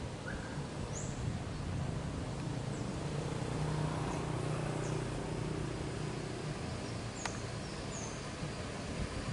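Low, steady engine hum of a coach bus rolling slowly closer, with a few short high bird chirps over it.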